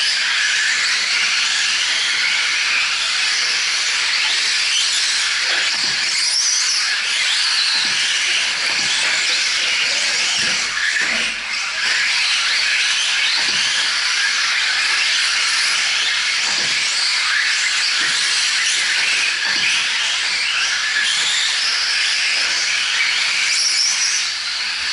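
Radio-controlled 4WD short course trucks racing on a dirt track: a steady high whine and hiss of their electric motors and drivetrains, overlapping from several trucks, with occasional faint knocks from landings and bumps.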